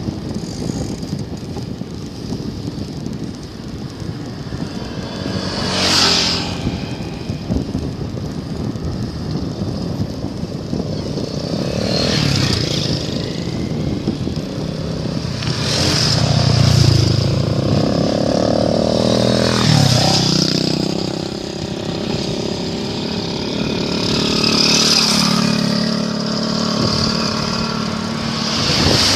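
Road traffic going by one vehicle after another, about six passes, with a louder engine passing in the middle whose note drops as it goes by. Steady wind noise on the microphone runs underneath.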